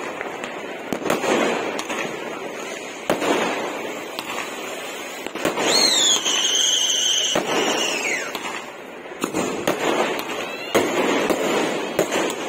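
Aerial fireworks bursting and crackling, with repeated sharp bangs. About six seconds in, a shrill whistle from a whistling firework drops in pitch, holds steady for about two seconds, then falls away.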